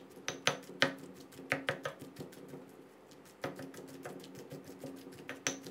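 Granite pestle pounding in a granite mortar, mashing soft salted eggs into a chilli paste: irregular sharp knocks, two or three a second at first, then softer, with one louder knock near the end.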